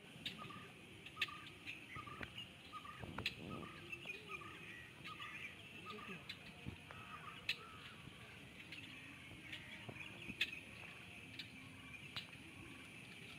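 Marsh sounds: a steady high drone under a short animal call repeated about twice a second through the first half, with scattered sharp clicks.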